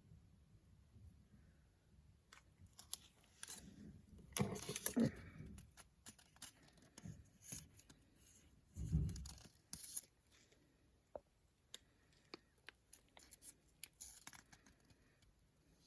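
Beyblade packaging and small plastic parts being handled: scattered clicks and light knocks, a rustle of packaging about four seconds in, and a dull thump about nine seconds in.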